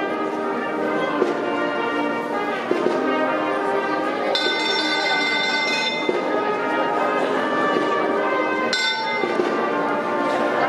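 Holy Week procession band music: slow, held chords that change every second or so, with bright ringing high notes about four seconds in and again near nine seconds.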